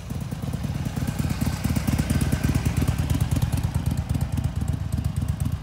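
Harley-Davidson Milwaukee-Eight 107 V-twin engine running at a steady, lumpy idle, growing a little louder about a second in.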